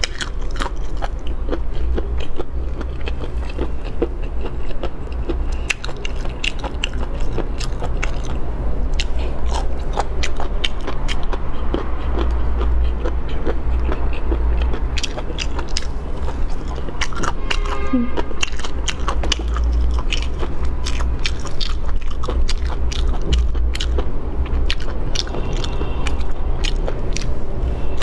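Close-miked eating: a person biting and chewing a crunchy spiced triangle-bone (三角骨) cartilage snack, with many sharp crunching clicks throughout. A steady low hum runs underneath.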